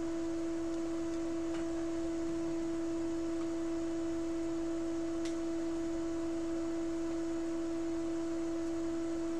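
A steady, unchanging pure tone, with a fainter tone an octave above it.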